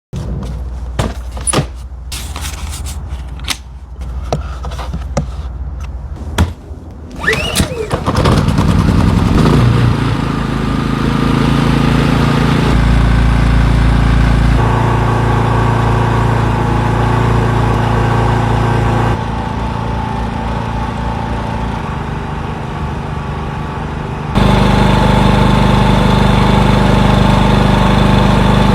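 PowerSmart 4800 W inverter generator starting up after a few clicks and knocks, then running steadily. Its engine speed and loudness step up and down several times, with a marked step up near the end.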